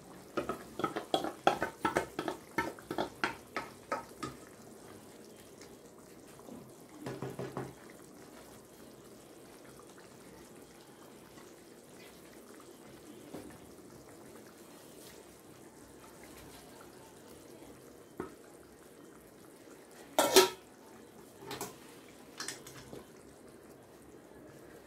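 Wooden spoon knocking and scraping coconut paste off a steel bowl into a steel kadai: a quick run of taps, about four a second, for the first few seconds. After that there is the faint steady bubbling of the boiling curry, with a loud knock of the spoon against the pan about twenty seconds in and two lighter ones after it.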